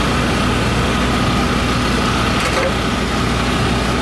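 Steady hum of an idling engine with a constant high whine over it, unchanging throughout.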